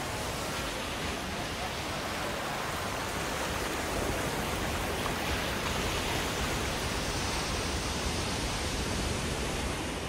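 Surf breaking and churning over rocks, a steady rush of white water that grows a little louder about four seconds in.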